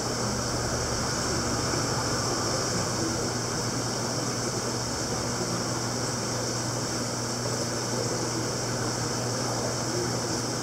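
Steady hum of aquarium equipment, a pump or filter running, under an even hiss of moving water, unchanging throughout.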